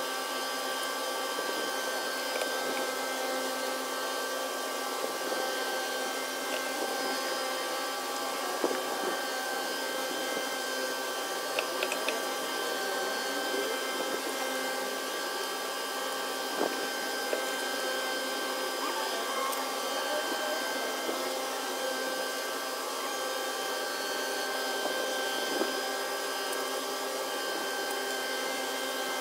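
A steady mechanical hum with several fixed whining tones, with a few light clicks now and then.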